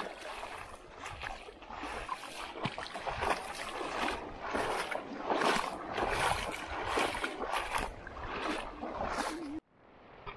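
Seawater splashing and sloshing against a rocky shore in short, irregular surges, cutting off abruptly near the end.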